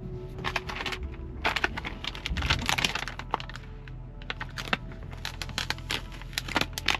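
Background music with many sharp clicks and crackles over it, coming in dense runs about one and a half seconds in and again near the end.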